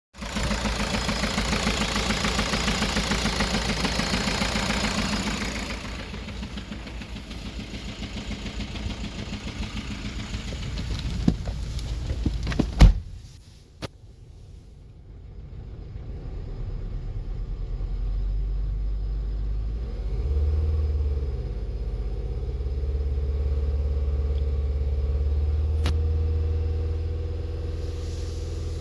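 VW Sharan engine running with a misfire on cylinder 3 (fault code P0303), with a pulsing beat loudest in the first few seconds. A sharp knock comes about halfway through, and then a deeper, steadier low rumble builds.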